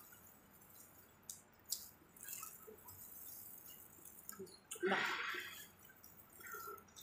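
Mukbang eating sounds: plastic-gloved hands pulling apart sauce-covered crab and shrimp, with scattered small clicks and wet squishes and a louder wet crackle about five seconds in.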